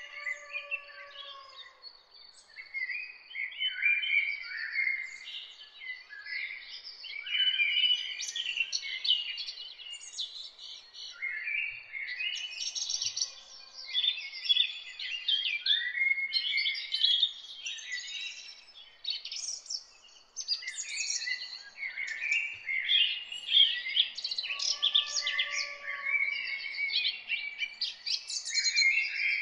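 Many birds chirping and twittering in overlapping bursts of short, high calls, over a faint steady high tone.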